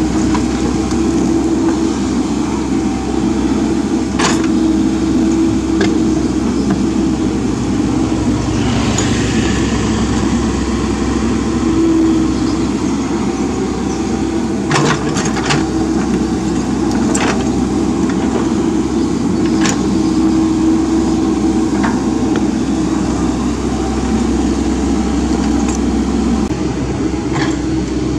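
Mini excavator's diesel engine running steadily as it digs a ditch in soil, with scattered sharp knocks and clanks from the bucket and boom at work.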